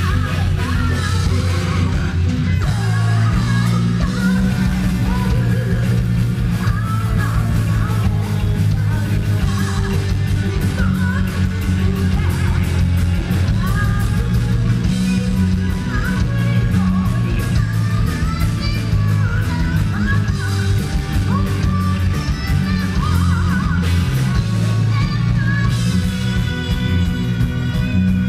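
Heavy metal band playing live: fast drumming, electric guitar and bass under a singer's voice.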